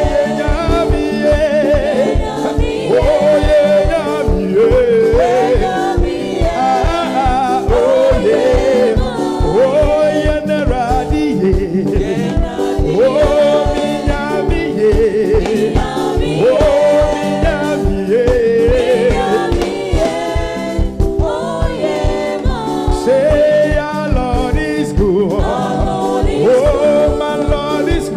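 Pentecostal gospel praise music: voices singing over a band with a fast, steady beat.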